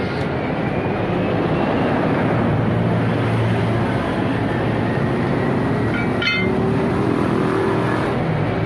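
Steady motor-vehicle engine and road traffic noise, with a short sharp metallic clink about six seconds in.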